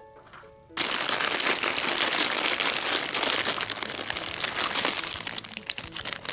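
Hand rummaging through a basket of foil and plastic blind-bag packets: loud, continuous crinkling and rustling full of small crackles, starting abruptly under a second in after a few faint musical notes.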